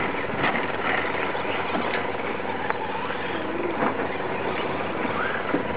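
RC short-course trucks racing on dirt: a steady rushing noise with short motor whines that rise and fall as the trucks speed up and slow down.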